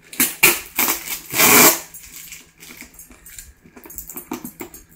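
Jewellery packaging being handled: scattered small clicks and light metallic clinks of the pieces, with a louder rustle of packaging about a second and a half in.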